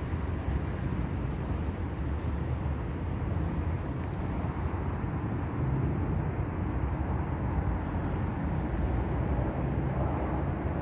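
Steady low outdoor rumble with no distinct events, a constant background noise.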